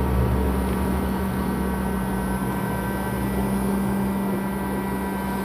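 Hot-air rework station blower running steadily, a constant hum with an even hiss of air, as it heats a phone's USB Type-C charging port to melt the solder and free it from the board.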